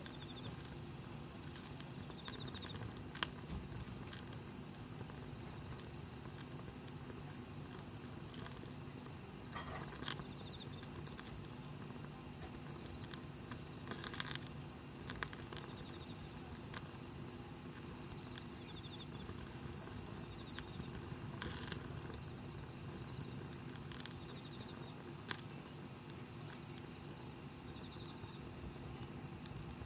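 Wood campfire crackling, with scattered sharp pops a few seconds apart over a steady low background. Insects chirp in short, high trills that come and go every few seconds.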